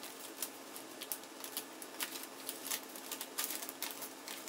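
Brown paper bag crinkling and rustling as it is handled and folded around a potted plant, an irregular run of sharp crackles that grows busier about three and a half seconds in.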